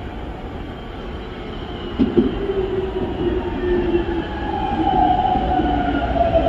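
Keikyū 2100-series electric train approaching along the track: a running rumble with a thump about two seconds in. The motor and inverter whine slowly falls in pitch as the train slows.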